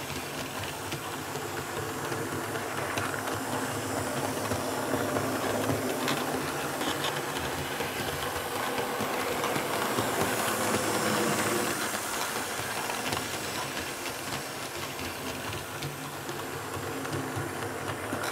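Märklin H0 E41 electric locomotive model pulling passenger coaches around Märklin K-Track, a steady rolling rumble and motor hum with a few faint clicks. It grows louder towards the middle as the train comes round nearest, then eases off. The track is laid on sound-insulating sheet on one half and cork on the other, as a test of track noise.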